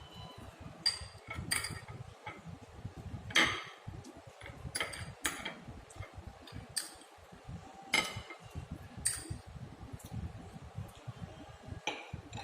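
Irregular clinks of cutlery and dishes, some with a short ring, as someone eats a meal from a plate and bowls. Two louder clinks come about three and a half seconds and eight seconds in.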